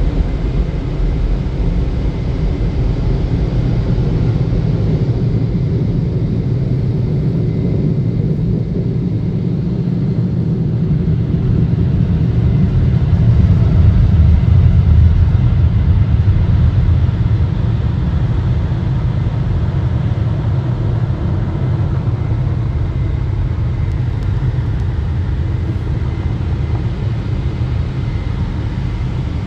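Touchless automatic car wash's air dryer blowing over the car, heard from inside the cabin as a steady low rumble that swells to its loudest about halfway through, then eases off a little.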